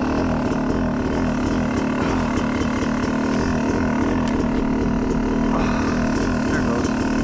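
Yamaha YZ250 two-stroke dirt bike engine running steadily, holding an even pitch without revving up or down.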